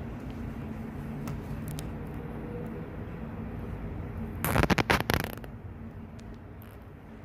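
Steady hum of city traffic from the street far below. A little past halfway comes a brief, loud burst of rustling and scraping that lasts under a second.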